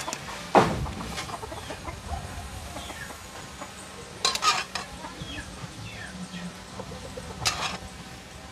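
Chickens clucking in short falling calls, with three sharp knocks or clatters, one shortly after the start, one about four seconds in and one near the end.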